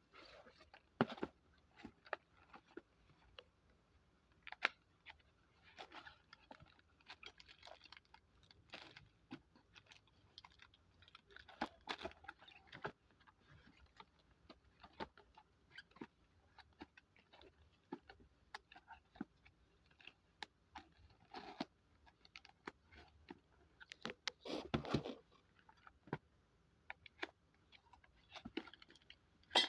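Packaging and parts of a TV wall bracket kit being handled during unboxing: irregular clicks, taps and crinkling rustles, with a longer rustle about 25 seconds in.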